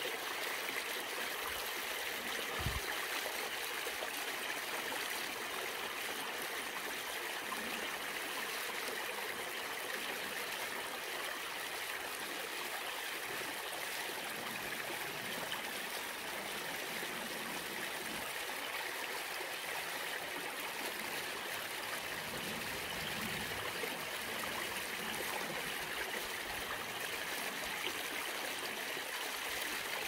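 Mountain valley stream flowing over rocks, a steady, even babble of running water. A brief low thump sounds about three seconds in.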